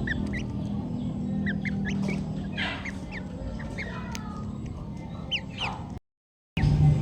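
Brahma chickens calling: many short, high chirps in quick succession, with two louder clucking calls, over a low steady hum. The sound cuts out abruptly for about half a second near the end.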